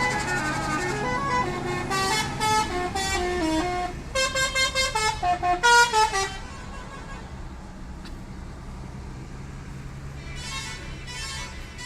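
Indonesian bus 'telolet' musical horns playing a stepped melody of notes, breaking into a quick run of short repeated blasts, over the low steady hum of bus engines. The horns stop about six seconds in, and a fainter horn tune sounds again near the end.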